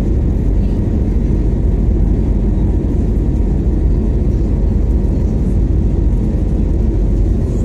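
Airbus A321neo cabin noise during climb-out, heard at a window seat over the wing: a steady, deep rumble of the jet engines and airflow, with no breaks or changes.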